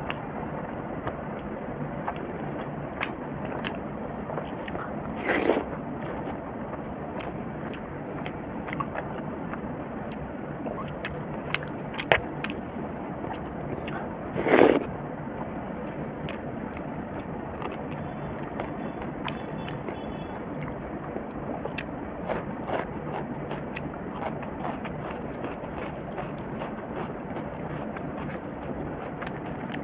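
Close-miked chewing and wet mouth sounds of someone eating rice and egg curry by hand, with many small clicks and fingers mixing rice on a steel plate. Two louder mouth sounds stand out, about five and about fifteen seconds in.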